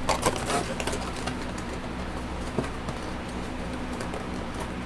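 A trading card box being handled: a quick run of crinkles and clicks in the first second, then only faint handling noises over a low steady hum.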